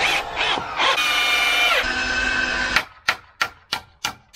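Cordless drill-driver running a screw into the wooden frame, its whine dropping in pitch about two seconds in, then stopping; after it come a string of sharp taps, about three a second.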